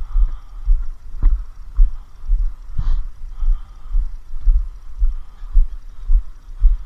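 Walking footsteps picked up through a body-worn camera as dull low thumps, about two a second, with a sharp click about a second in and a brief rattle near three seconds.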